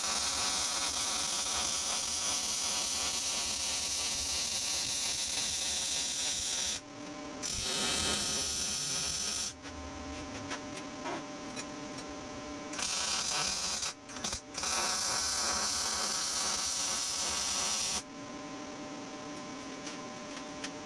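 MIG welding arc crackling steadily while beads are laid on steel plate, in four runs with short pauses between. In the pauses only the low steady hum of the welder is left.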